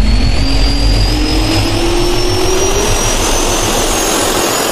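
Jet turbine spool-up sound effect: a whine that climbs slowly in pitch over a steady rushing roar and low rumble.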